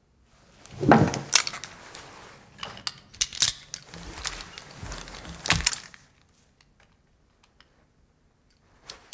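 A run of sharp clicks and knocks with rustling for about six seconds, the loudest about a second in, then quiet and a single click near the end.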